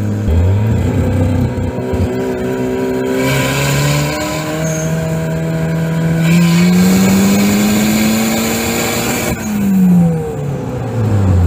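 Turbocharged Mazda Miata B6 1.6-litre DOHC four-cylinder heard from inside the cabin under hard acceleration. The revs climb, drop at a shift about three seconds in, then rise again through a long pull with a loud hiss over the engine. About nine seconds in the driver lifts off, and the engine falls back to a steady cruise.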